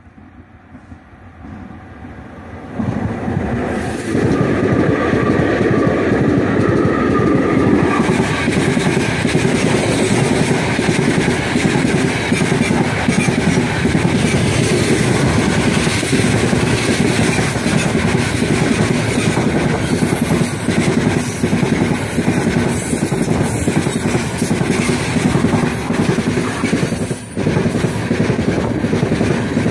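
A heavy freight train hauled by a four-section 2ES5K Ermak electric locomotive set approaches and passes at speed. The rumble grows over the first few seconds and rises sharply as the locomotives go by, with a high whine for a few seconds. Then the loaded open wagons clatter steadily over the rail joints.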